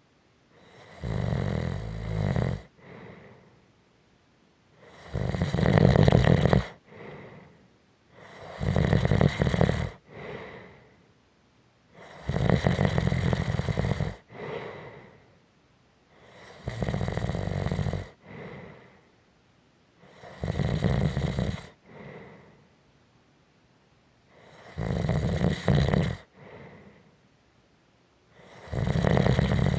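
A person snoring: a long, loud snore about every four seconds, each followed by a shorter, softer breath, in a slow, regular sleeping rhythm.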